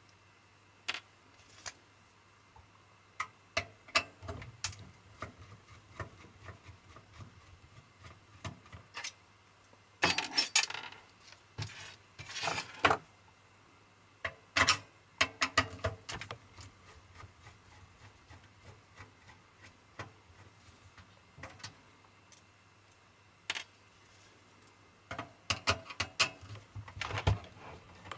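Screwdriver turning out screws from a DVD recorder's sheet-metal back panel: scattered metallic clicks and scrapes, with several longer rattling bursts.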